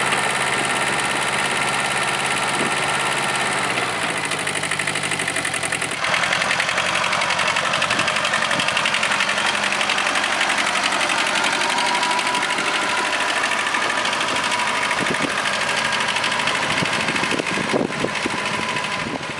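Kubota B7000 compact tractor's diesel engine running steadily while driving the rear rotary tiller. About six seconds in the sound changes abruptly to the engine running as the tractor drives off.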